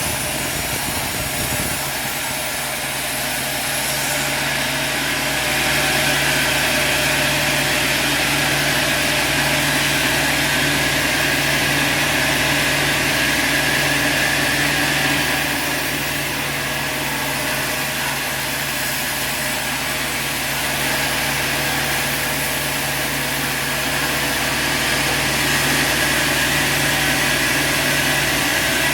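A sawmill's saw and its motor running steadily with a low hum. It grows louder for two stretches, about five seconds in and again near the end.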